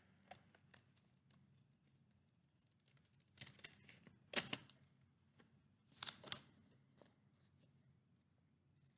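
Scissors snipping through folded construction paper: faint light scratches and ticks, then a few short crisp cuts in small clusters about a second or two apart.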